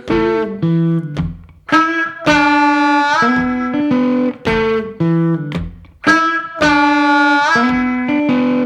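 Guitar playing a repeating blues riff, a phrase of plucked notes with string bends that comes round twice.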